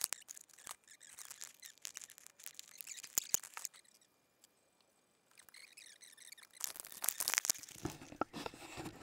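Handling noise close to the microphone: rapid small clicks, taps and rustling from hands working on the glider's servo and camera mount. It goes quiet for about a second around the middle, then gets denser again near the end.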